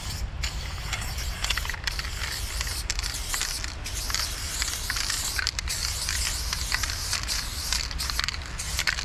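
Aerosol spray paint can hissing in a run of strokes as a graffiti tag is sprayed, the hiss cutting off briefly between strokes. A low steady rumble sits underneath.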